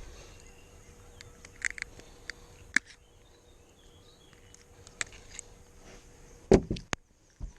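Handling noises in a fishing boat: scattered light clicks and knocks, with one heavier thump about six and a half seconds in.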